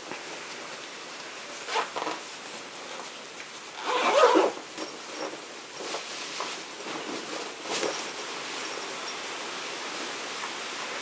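A fabric Christmas tree storage bag rustling and its zipper being worked as it is pulled on over a person, in several short scrapes, the loudest about four seconds in, over a steady hiss.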